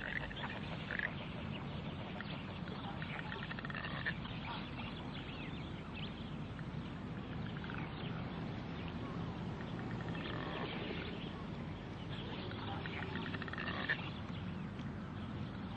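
Ducks calling: short, scattered calls over a steady low rumble.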